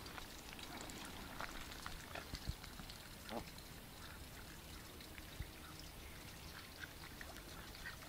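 Ducks quacking faintly, a few scattered short calls with a clearer one about three seconds in, with a few low bumps from the handheld phone.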